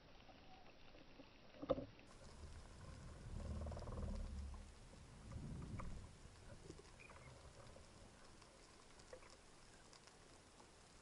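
Underwater sound on a freediver's camera: a single sharp click about two seconds in, then a low rush of water noise for about three seconds as the diver swims up from the bottom. Faint scattered crackling clicks of the seabed run underneath.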